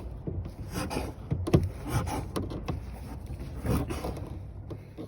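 Irregular knocks and clicks of hands and tools handling parts of a pickup's rear sliding-window assembly.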